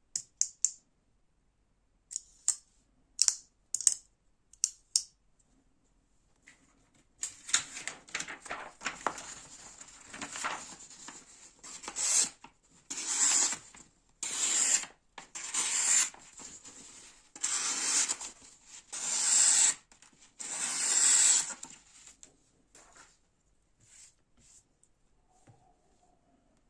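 A few sharp clicks, then a rhythmic series of rasping swishes, each under a second, about one every second and a half, like paper or card being cut or torn.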